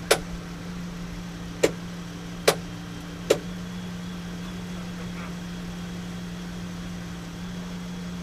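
A steady mechanical hum, with four sharp clicks or knocks spread over the first three and a half seconds.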